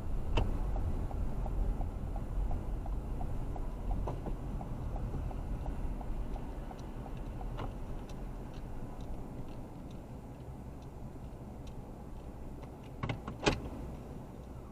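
A car running at a standstill with a low rumble, and an even ticking at about two to three ticks a second through the first half. Two or three sharp knocks come near the end.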